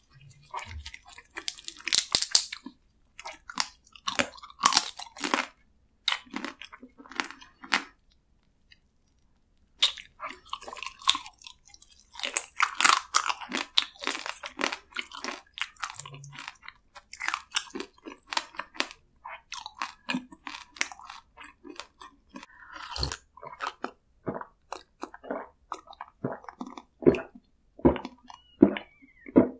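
Chewing and crunching of spicy marinated raw crab, the shell cracking between the teeth in bursts with a short pause in the middle. Near the end come a few deeper gulps of water from a glass.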